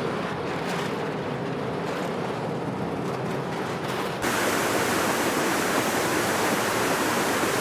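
Steady rushing water noise, changing abruptly about four seconds in to a louder, brighter hiss.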